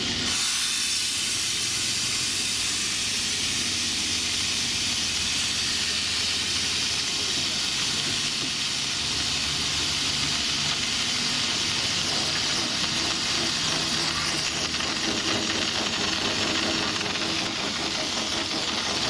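Steam locomotive venting steam: a steady hiss that starts abruptly.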